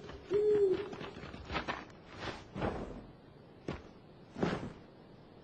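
An owl hooting once, a short hoot about half a second in, followed by several faint, short noises spaced out through the rest.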